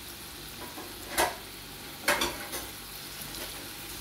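Battered potato fries deep-frying in hot oil in a wok: a steady sizzle, with two louder brief noises about one and two seconds in.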